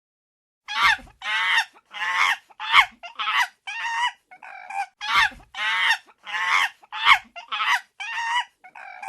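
A primate, presented as a chimpanzee, giving a rapid series of short, high-pitched screeching calls that waver up and down in pitch, about fifteen of them starting about a second in.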